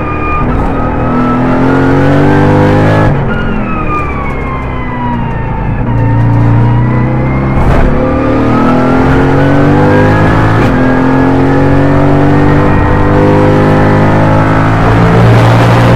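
Mercedes-AMG GT4's twin-turbo V8 heard from inside the race car's cockpit. The engine note falls as the car brakes and downshifts, then climbs again under full acceleration, broken by quick gear changes.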